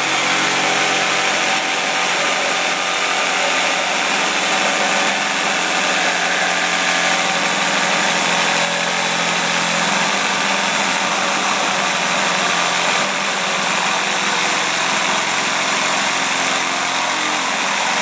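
Ridgid R86447 18V cordless one-handed reciprocating saw running steadily as its stock blade saws through a 2x4.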